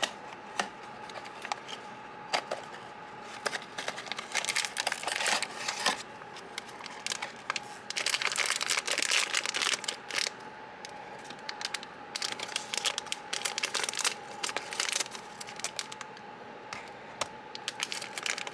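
Plastic blind-box packaging crinkling and crackling under handling, in bouts of several seconds with short pauses between them.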